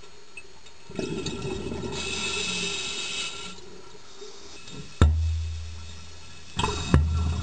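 Underwater diver's breathing through a regulator: bubbling rumble of exhaled air and a hissing inhale. About five seconds in, a sharp knock is followed by a low hum that fades, and two more knocks come close together near the end.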